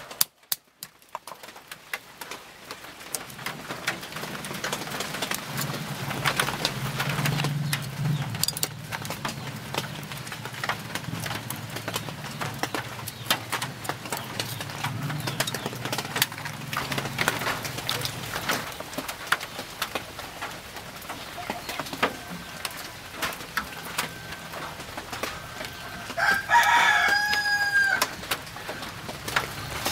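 A rooster crows once near the end, a pitched call of about two seconds that falls away at its close, over a run of small clicks and knocks from knife and stone food preparation. A low steady hum fills the first half.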